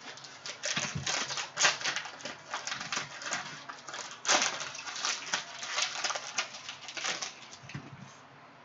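Crinkling and tearing of the cellophane wrapper of a Panini Prizm basketball cello pack as it is ripped open by hand: a dense, irregular run of sharp crackles, with the loudest snaps about one and a half and four seconds in.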